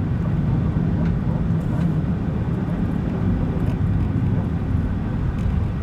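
Steady low rumble of a car driving at an even pace: engine and tyre noise heard from inside the cabin.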